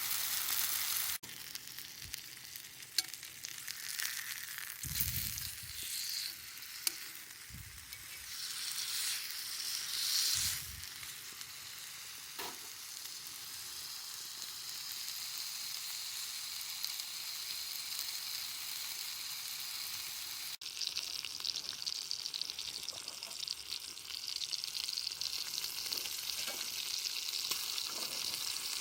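Slices of pork sizzling in oil in a pan over a campfire: a steady frying hiss with occasional small pops.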